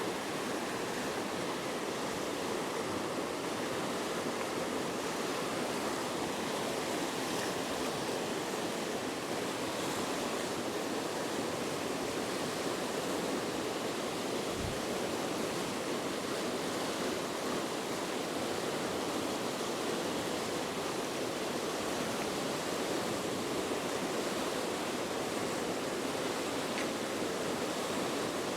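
River water rushing steadily over falls and rapids, an even unbroken rush.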